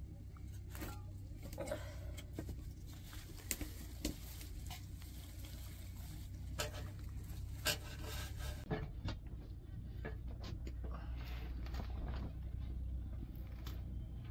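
Hands handling fresh radish greens and green onions in a metal bowl: irregular rustling of leaves with scattered clicks and taps against the bowl, over a low steady hum.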